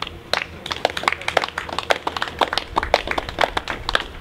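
A small group of people clapping by hand, starting just after the start and stopping near the end.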